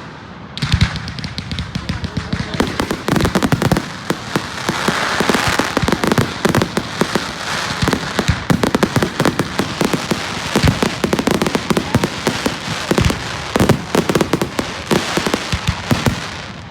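Fireworks going off in a dense barrage of rapid bangs and crackles, with a hissing crackle that swells about four to eight seconds in.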